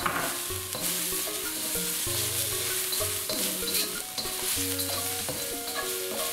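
Shiitake mushrooms, dried red chilies and aromatics sizzling steadily in hot oil in a wok, stirred and scraped around the pan with a slotted spatula.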